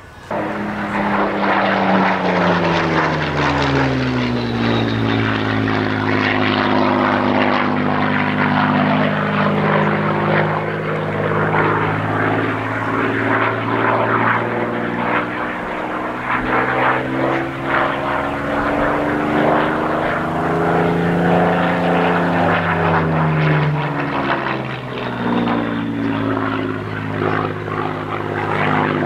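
Spitfire RW382's Merlin V12 piston engine running at full display power as the fighter flies overhead. The engine note slides down and back up in pitch several times as the aircraft passes and turns.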